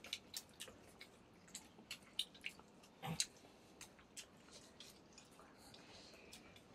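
Faint eating sounds: scattered small wet clicks and squishes of chewing and of fingers mixing rice on a steel plate, with one slightly louder short sound about three seconds in.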